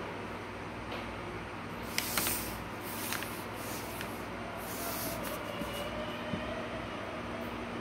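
Sheets of paper rustling and sliding on a desk in a few short swishes, with a couple of light taps, over a steady low hum.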